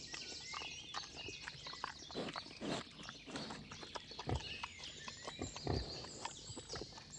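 Wild boar moving in a muddy wallow: irregular wet squelches and splashes of mud and water, with a few heavier thuds of its trotters in the mud, three of them stronger.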